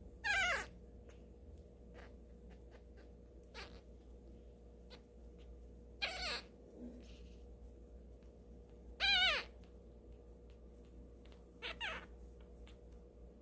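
Newborn kitten, eyes still shut, mewing: a handful of short, high, thin cries a few seconds apart, each falling in pitch, the last two close together.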